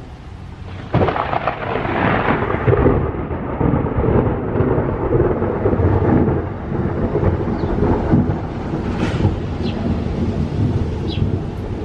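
A thunderclap breaks suddenly about a second in and rolls on into a long rumble, with rain falling.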